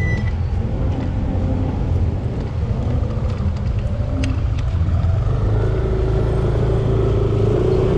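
Motor vehicle engine running steadily with road and traffic noise, a low rumble that swells slightly near the end.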